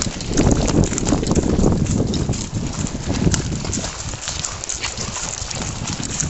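A pony's hooves and a saddle chariot's wheels crunching steadily over shell-strewn shingle and wet sand at a walk, a dense stream of small crackling ticks over a low rumble.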